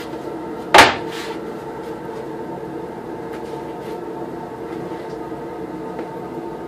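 A piece of plywood lands with one sharp wooden knock on the workbench a little under a second in, over a steady mechanical hum from shop machinery.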